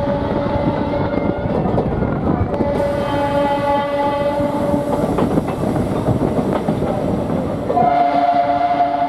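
Diesel-electric multiple unit train sounding its horn in long held blasts over the clatter of its wheels on the rails. Near the end the horn changes to a higher note.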